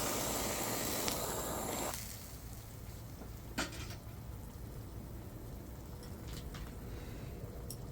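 Camp burner hissing steadily under a simmering hot pot until about two seconds in, when the hiss drops away sharply; after that there is a quieter low hiss with a few small clicks and pops.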